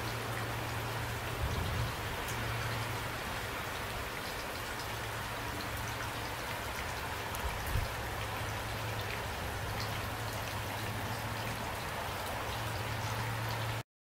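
Steady rain falling, with scattered individual drops ticking through an even hiss. A low steady hum sits underneath. The sound cuts off abruptly near the end.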